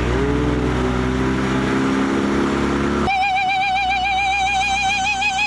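A small boat's outboard motor accelerates, its pitch rising over the first three seconds. About three seconds in the sound switches abruptly to a higher, steady engine whine at high revs that wavers quickly up and down in pitch.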